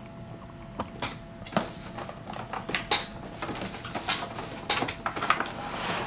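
Cardboard box and packaging rustling, scraping and knocking as a Cooler Master Hyper 212 EVO CPU cooler is worked out of its retail box. Irregular clicks and scrapes, busier in the second half.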